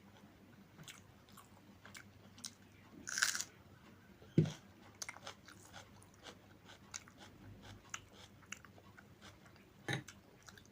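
A person eating a meal of rice and curry, with scattered chewing and mouth clicks. A short rustling burst comes about three seconds in, and a dull thud about a second later.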